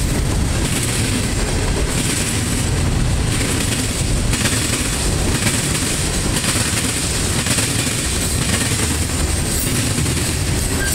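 Freight cars (boxcars, covered hoppers and tank cars) rolling past close by: a steady rumble and clatter of steel wheels on the rails.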